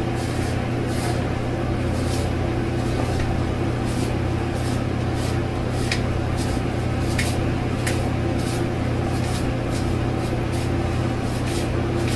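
Cartridge razor strokes scraping across a lathered scalp, a short scratchy stroke about every half second, over a steady low hum.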